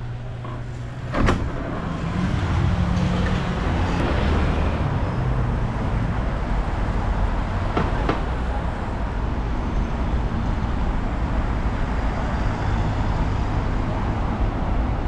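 A shop's glass door unlatches with a sharp click as its push bar is pressed about a second in, then steady city street traffic, cars passing on the road.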